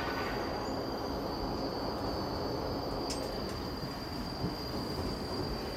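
Steady rumble and hiss of a moving cable car gondola heard from inside the cabin, with a thin high steady whine running through it and a couple of faint ticks.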